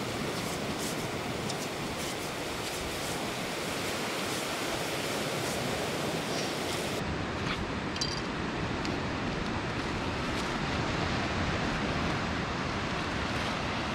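Steady rush of surf washing onto a sandy beach.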